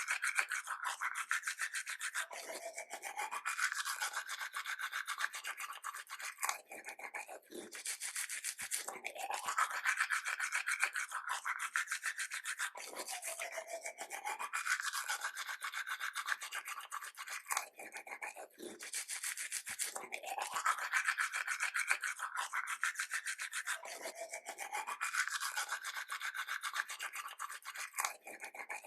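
Teeth being brushed with a toothbrush: a continuous run of quick scrubbing strokes, a wet scratchy rasp that swells and eases about every five to six seconds.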